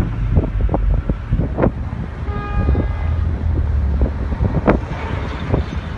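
Heavy wind rumble on the microphone with a scattered run of sharp pops and cracks from exploding munitions at a burning ammunition depot; the loudest cracks come at the very start and about three-quarters of the way through. A short steady tone sounds for about a second near the middle.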